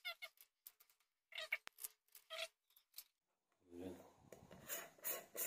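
Faint handling of a metal tin of airgun pellets: scattered light clicks and rustles, then a denser run of scraping about four seconds in as the lid is worked off.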